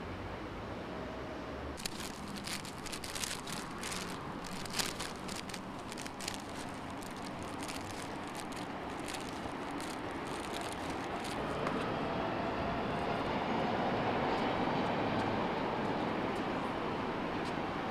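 Street traffic noise, a steady hiss that swells louder about two-thirds of the way through, with faint whining tones in it. A run of sharp, irregular clicks comes between about two and seven seconds in.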